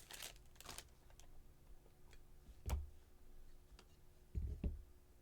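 Trading cards being handled on a table: scattered light clicks and taps, with a dull thump about halfway through and two more close together near the end.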